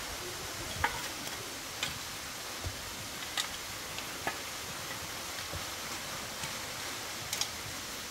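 A long-handled hoe chopping into dry, rocky soil: short, sharp strikes about once a second, each with a little scrape of earth.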